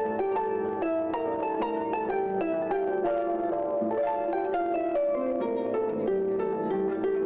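Harp playing a flowing melody, its strings plucked in a quick, steady run of several notes a second, each left ringing.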